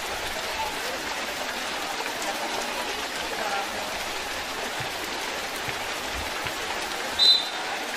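Heavy rain falling steadily on a wet outdoor court, an even hiss. Near the end comes one short, shrill whistle blast, the loudest sound.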